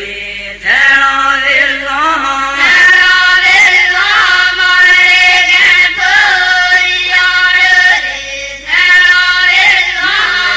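A group of voices singing a devotional folk chant in long, wavering notes, with brief breaks between phrases.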